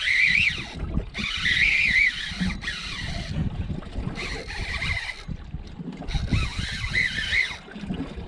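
Spinning reel's drag whining in wavering spurts, three times, as a hooked fish running hard pulls line off, over wind buffeting the microphone.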